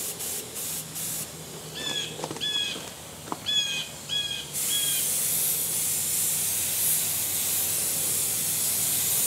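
Air-fed HVLP paint spray gun hissing, first in a few short trigger bursts, then spraying steadily from about halfway through. A bird chirps five times in the middle.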